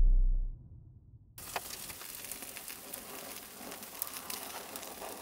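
Background music fades out in the first half second; after a brief gap a steady sizzle with fine crackles sets in: fat sizzling on the crisped skin of a whole roast lamb.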